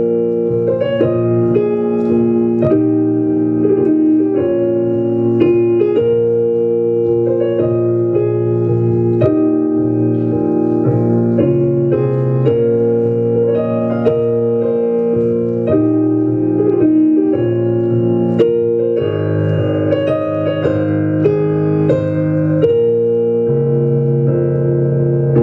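Waltz tune played on a keyboard instrument: held chords under a moving melody, with the bass changing near the end.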